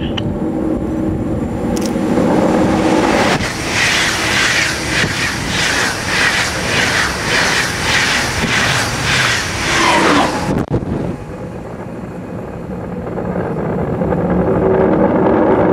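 Deutsche Bahn Intercity passenger train passing through a station at speed: a loud rush of wheel and air noise with a rhythmic clatter of about two beats a second as the coaches go by. It cuts off suddenly about ten seconds in, leaving a quieter hum that grows again near the end.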